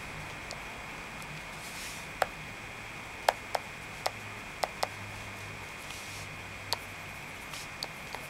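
Stylus tip tapping and clicking against the ASUS Eee PC T101MT's touchscreen glass while handwriting. The sharp ticks come irregularly, about a dozen of them, a few in quick pairs.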